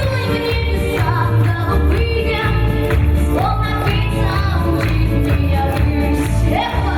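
Gypsy (Roma) song performed by a band with singing over a steady pulsing bass beat, with sliding vocal phrases. The beat stops right at the end as the song closes.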